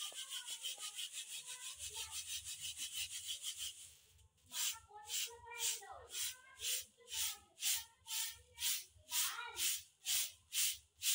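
Puffed rice being shaken in a round bamboo sieve to sift out the frying sand, a dry rattling rub of grains on woven bamboo. The strokes come fast and close together at first, then slow after about four seconds to separate swishes about twice a second.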